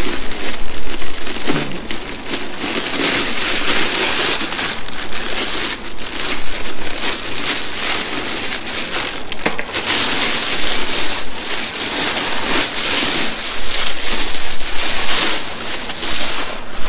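Thin clear plastic bag crinkling and rustling continuously with many sharp crackles as it is untied and pulled off a motorcycle helmet by hand.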